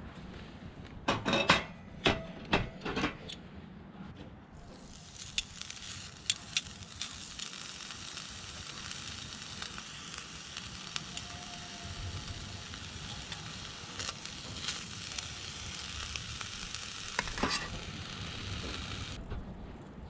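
Thin slices of beef sizzling in a hot cast iron skillet over charcoal: a steady crackling hiss that starts about five seconds in as the meat goes into the pan and cuts off abruptly near the end. Before it there are a few sharp clicks of metal tongs against the metal tin.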